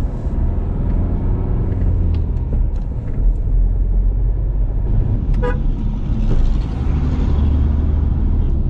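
Car driving on the highway: steady low rumble of engine and road, with a short horn toot about five seconds in.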